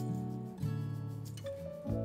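Instrumental background music, with held notes that change about half a second in and again near the end.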